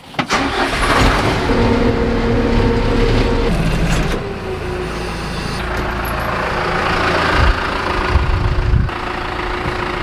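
John Deere backhoe's diesel engine starting and then running steadily.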